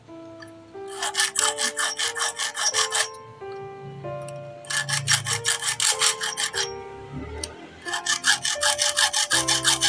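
Small hand file rasping in quick short strokes across the worn-flat teeth of an overlock machine's metal feed dog to resharpen them, in three runs of about six or seven strokes a second. Background music plays underneath.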